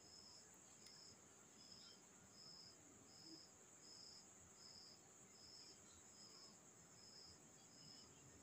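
Near silence with faint insect chirping: a short, high chirp repeating evenly a little under twice a second over a steady high-pitched trill.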